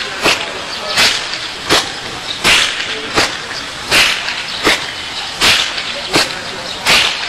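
Open-hand palm strikes slapping down on stones laid on a concrete bench, in a steady rhythm of about one stroke every three quarters of a second, louder and softer in turn.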